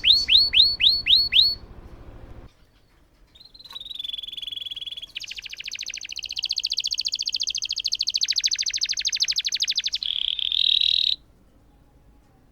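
Domestic canary singing: a run of loud, quickly repeated falling whistles, a brief pause, then a long rapid rolling trill of about six seconds that cuts off suddenly near the end.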